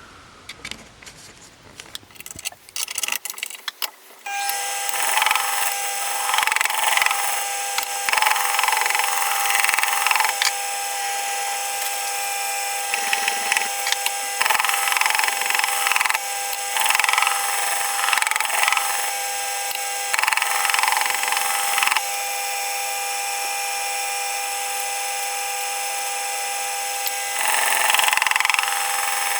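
A Jet wet sharpening machine's motor starts about four seconds in and runs with a steady whine. A knife blade is stropped against its turning honing wheel in repeated passes, each pass adding a loud hiss that lasts a second or two.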